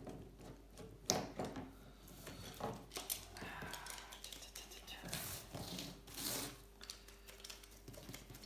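Scattered light clicks, taps and rustling from small parts and tools being handled, with one sharper click about a second in.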